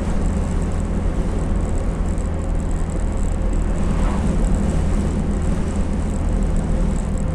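IZh-2717 'Pirozhok' van driving at a steady speed, heard from inside the cab: a steady engine drone with road noise.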